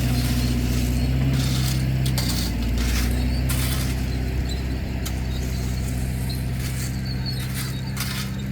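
An engine of the equipment working the site runs steadily throughout, with a slight dip in pitch about two seconds in. Scattered clicks and scrapes sound over it.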